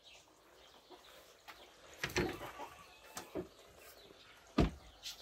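Faint short bird calls from the birds around the coops, with a few soft knocks and scuffs of walking and handling; the loudest knock comes near the end.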